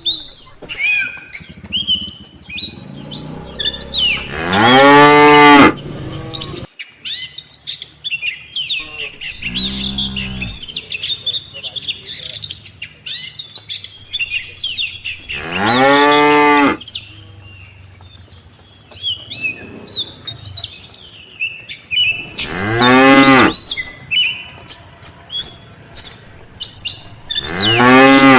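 Cattle mooing: about five long, low moos spaced several seconds apart, one of them deeper and quieter, with small birds chirping between them.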